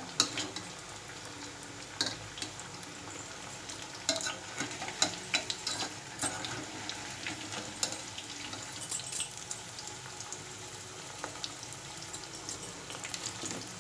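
Spiced potatoes frying in oil in a kadai with a steady sizzle, while a spatula stirs them, its scrapes and taps against the pan coming as scattered clicks.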